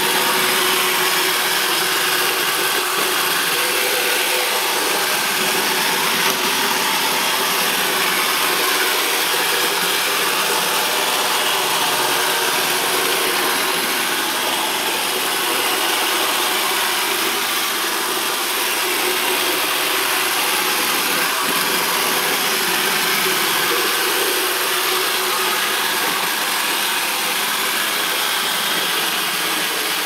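iRobot Dirt Dog robot floor sweeper running on a hard floor, a steady mechanical whir that holds at an even level throughout.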